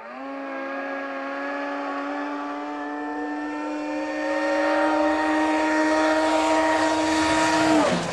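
Snowmobile engine revving up quickly, then holding a steady high-pitched note while growing louder as the sled approaches, cutting off abruptly near the end.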